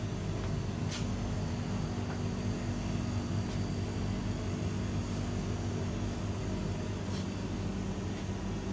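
Steady low hum of refrigerated display cases, several held tones over a low rumble, with a couple of light clicks.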